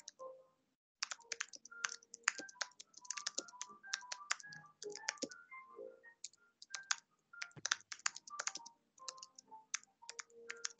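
Typing on a computer keyboard: quick, irregular key clicks with a few short pauses.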